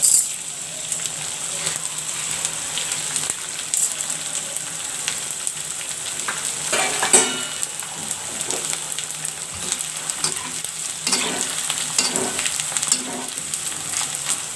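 Pieces of edible gum (dink) deep-frying in hot ghee, sizzling and crackling with many small pops as they puff up. A metal spoon stirs and scrapes them around the aluminium pot, with a sharper knock about halfway through.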